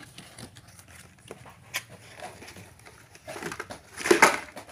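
Cardboard box of a Hot Wheels carry case being handled and opened by hand: scattered light taps, scrapes and rustles, with a louder scraping, rustling stretch about four seconds in.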